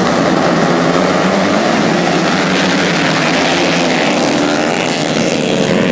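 A pack of dirt bike engines revving hard together as the riders launch off the start line of a grass-track race, many engine notes overlapping and rising and falling. About four seconds in, one bike passes close.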